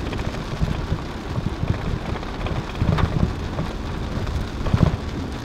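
Rain falling on a moving car's roof and windshield, with a few sharper knocks, the loudest about three seconds in and again near the end.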